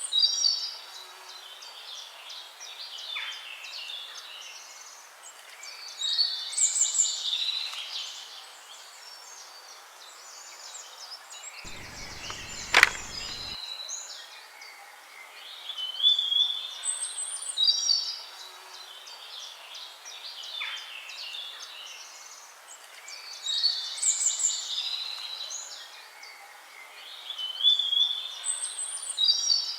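Songbirds chirping and calling in bursts every several seconds over a faint steady hiss, with a single sharp click about thirteen seconds in.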